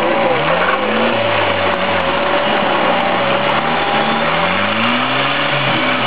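Small tractor's engine running with its pitch rising and falling several times as the throttle is worked on the course.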